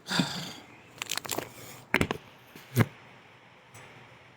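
A short breathy vocal sound, then scattered sharp clicks and two louder cracks about a second apart: food being handled and bitten into while eating.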